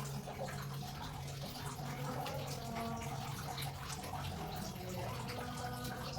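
Water running and splashing steadily during a faucet installation, with faint scattered clinks and a steady low hum underneath.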